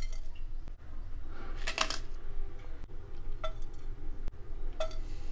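A plastic spoon clinking and scraping in a non-stick pan while whole spices (fennel seeds, dried red chillies, cloves, cinnamon) are added and stirred: a few short clinks, each leaving a brief ring from the pan, over a steady low hum.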